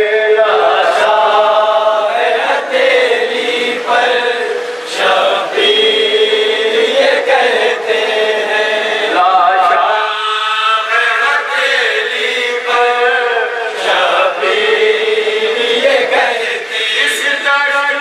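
A noha, a mourning lament in Urdu, chanted by a man in long held, wavering notes, with a group of men's voices chanting along; unaccompanied voices only.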